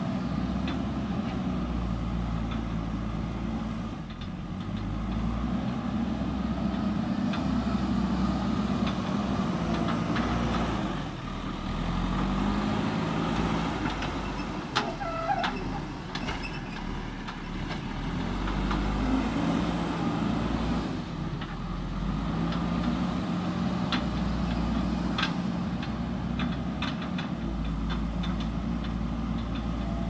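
JCB 3DX backhoe loader's diesel engine running under load and revving up and down several times as it works. Scattered clanks and knocks come in the middle and again toward the end as the loader scoops soil and lifts it over a dump truck.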